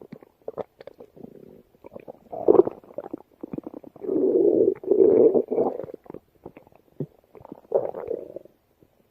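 A stomach growling and gurgling: a scatter of short pops and gurgles builds into longer, low rumbles. The loudest stretch comes about four to six seconds in, with another rumble near the end.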